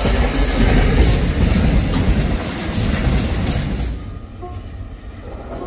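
CDA5B1 diesel-electric locomotive and its container freight wagons passing close at speed, the engine rumbling and the wheels clattering over the rails. The sound drops away sharply about four seconds in.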